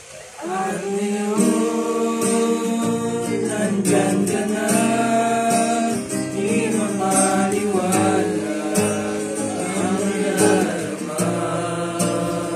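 Young men singing together to a strummed acoustic guitar; the voices and strumming come in about half a second in and carry on steadily.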